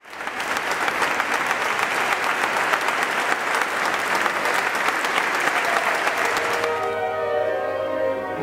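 Audience applauding, the clapping dying away about two thirds of the way through as sustained instrumental notes begin to sound.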